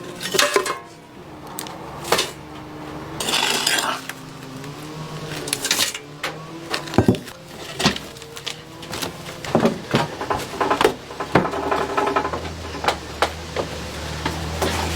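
Metal cookware and utensils clinking and knocking against pots and pans in irregular strokes, with a stretch of scraping.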